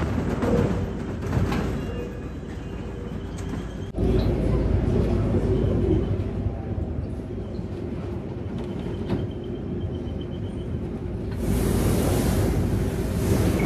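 Steady low drone of a large car ferry's engines and machinery, heard inside the ship, with a held hum underneath. A rushing hiss rises over it near the end.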